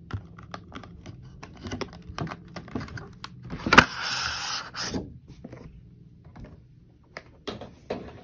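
Packaging being opened by hand: a run of small clicks, taps and rustles, with a louder tearing crinkle lasting about a second, a little under four seconds in.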